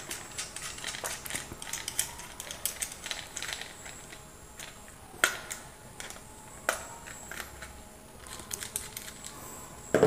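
Small clicks and scrapes of a tester screwdriver working a terminal screw on a plastic switch board, tightening a wire under the switch terminal, with a few sharper clicks and a louder knock near the end.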